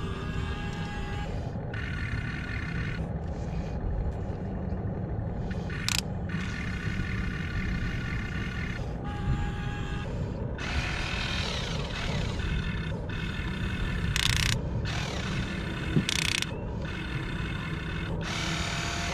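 Electric gear motors of a Huina 1592 RC excavator whining in short runs, starting and stopping as the boom and bucket are worked, over a steady low hum. A sharp click about six seconds in and a few short scrapes near the end.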